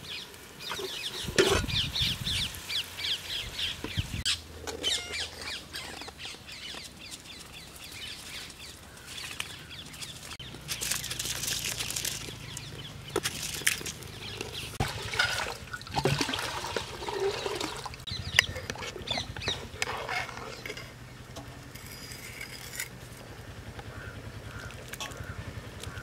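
Birds calling and chirping, with sharp metal knocks and the hiss and splash of rice being spooned into a pot of boiling water.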